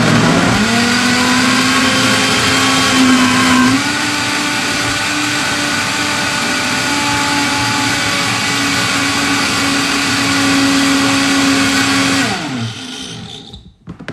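Optimum 9200A high-speed vortex blender motor churning frozen mango and banana into nice cream while the tamper is pressed down into the jar. The motor's pitch dips under the load at first and then recovers. About four seconds in it steps slightly higher and a little quieter, and a little after twelve seconds it winds down with a falling pitch and stops.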